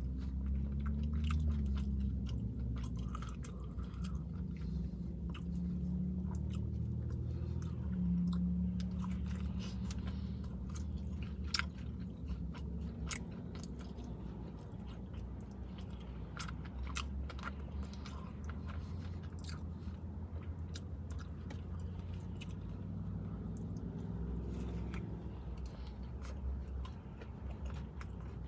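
Close-up chewing and biting of a crispy fried chicken sandwich, with many wet mouth smacks and clicks and some crunch, over a steady low hum.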